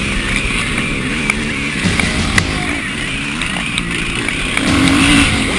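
Dirt bike engine heard from on board, revving up and falling back again and again as the bike races over a snow track, over a steady rushing noise.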